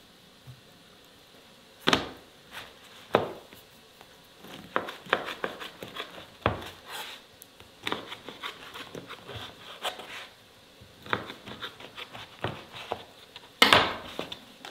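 Irregular knocks, clicks and light scrapes, as of things being handled, with a few louder knocks about two seconds in, about three seconds in and near the end.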